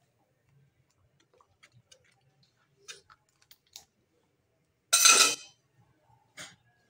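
Steel ladle and bowl clinking lightly against a wok of simmering soup as it is ladled and stirred, with one loud, short clatter about five seconds in.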